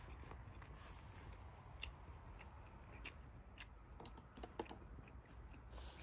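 Wood campfire crackling faintly, with irregular sharp pops.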